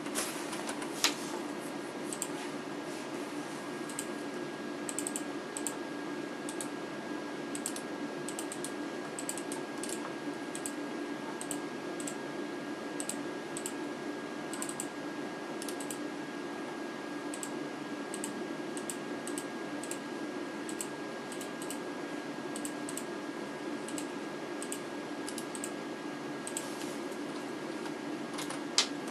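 Keys clicking on a wireless keyboard in quick, irregular runs, with a couple of sharper clicks about a second in and near the end, over a steady low hum.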